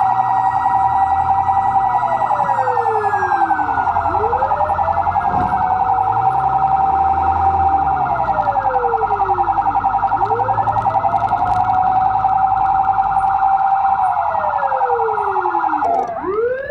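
Emergency sirens of a fire truck on a call sounding together. One wails up, holds and slides back down about every six seconds, over a steady, rapidly warbling siren tone. Near the end the wail dips low and climbs back up quickly.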